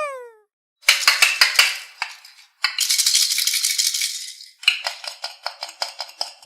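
Rattling, shaker-like sound effects: quick runs of rattling strokes, with a longer continuous shake in the middle. A short falling cartoon tone opens it.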